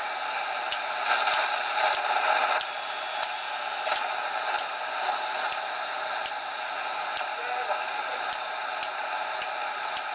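Cobra 200GTL-DX CB radio receiving: band hiss with a faint, noisy voice from a distant station, louder for a moment between about one and two and a half seconds in. Sharp clicks sound every half second to a second throughout.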